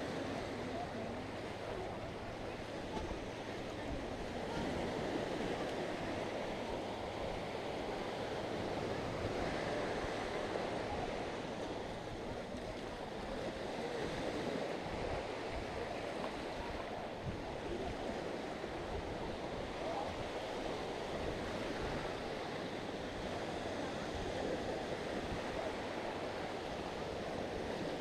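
Sea waves washing onto a sandy beach: a steady hiss of surf that swells and eases gently every few seconds.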